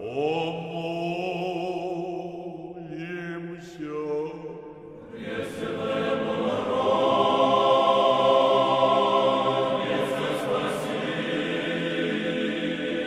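Orthodox church choir singing a slow chant in long held notes. The sound is thinner at first, then swells into full choir about five seconds in.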